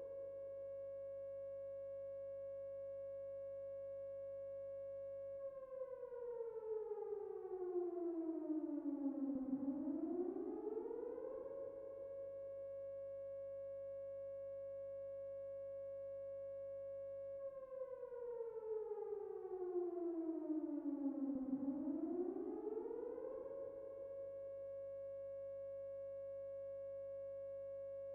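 Outdoor warning siren sounding for a tornado warning. It holds a steady tone for about six seconds, slides down in pitch for about four seconds and climbs quickly back up, and this happens twice.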